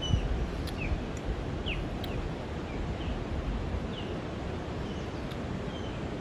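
Wind rumbling on the microphone, with a bird calling repeatedly in short, falling chirps.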